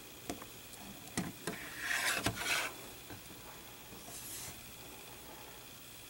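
Grey styrene model-kit sprues being handled: a few light plastic clicks, then a short scraping rustle about two seconds in and a fainter one about four seconds in as the sprue is shifted on the table.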